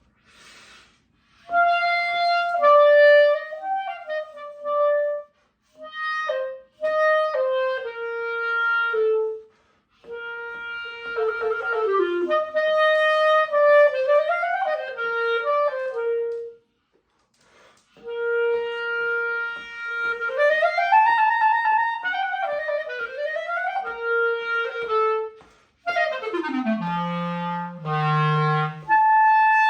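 Buffet R13 clarinet played solo: slow, legato melodic phrases broken by short breath pauses, with a quick run sliding down to low notes near the end. The owner says this clarinet still has some air leaks to fix.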